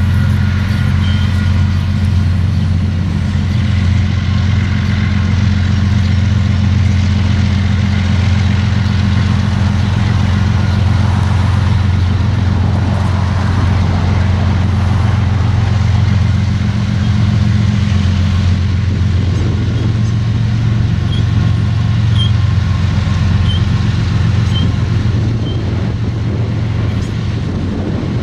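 GE ES44AC diesel-electric locomotives, with GEVO V12 engines, running with a steady low engine drone as they lead a freight train into a rail yard.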